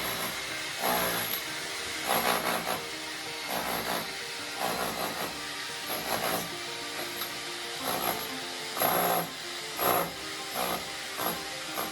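Repeated scraping or rubbing strokes, uneven and roughly one a second, over a steady hum from a running electric fan.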